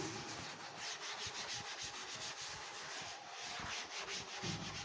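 Chalkboard eraser rubbing chalk off a chalkboard in quick back-and-forth strokes, several a second.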